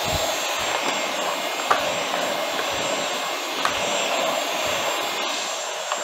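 Dyson V12 Detect Slim cordless stick vacuum running steadily with a thin high whine while it vacuums a laptop's removed plastic bottom cover. A couple of brief clicks, about two seconds apart, come through the motor noise.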